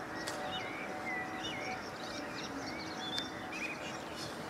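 Several small birds chirping and calling in short, curving notes, over a steady outdoor background rush. Two sharp clicks stand out, one near the start and one about three seconds in.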